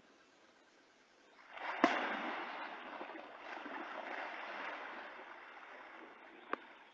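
Water splashing and churning in river shallows: something in the water strikes at a small white animal on the bank. It starts suddenly about a second and a half in with a sharp slap, then the thrashing slowly dies away. A short knock comes near the end.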